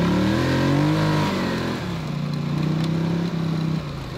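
Polaris Scrambler 850 four-wheeler engine running under way, its pitch rising and falling with the throttle. It holds a steady note for a while, then eases off just before the end.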